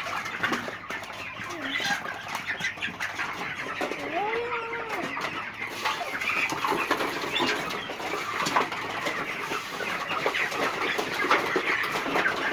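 A crowded flock of young chicks cheeping and chirping continuously as they feed. About four seconds in there is one longer, lower call that rises and falls.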